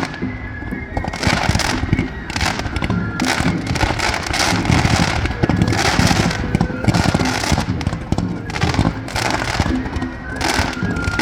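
Festival fireworks bursting in quick, uneven succession: a dense run of bangs and crackles with no pause.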